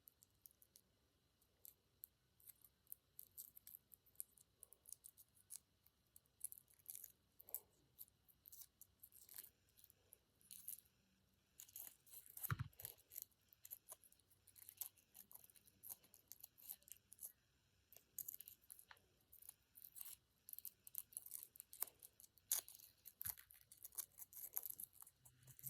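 Faint, irregular crinkles and ticks of aluminium foil being handled, as Play-Doh is worked into it.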